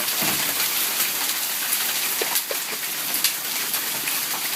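Hail and rain coming down hard: a steady hiss with scattered sharp clicks of hailstones striking.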